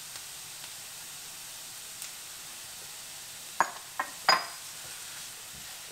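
Onions and garlic sizzling steadily in coconut oil in a sauté pan on medium heat. A little past halfway, three sharp utensil clinks; the last one rings briefly.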